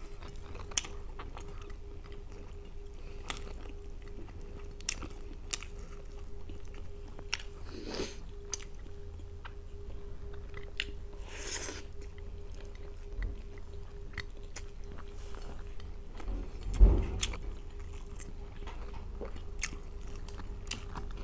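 Close-up mukbang eating sounds: chewing, with frequent small mouth clicks and smacks and some crunching, as food eaten by hand includes deep-fried pork slices. A low thump stands out about 17 seconds in, over a faint steady hum.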